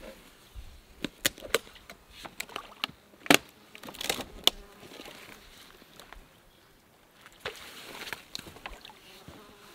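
Footsteps and a wooden walking staff knocking and clicking on rocks and dry driftwood: a run of sharp knocks in the first half, then a brief softer rustle near the end.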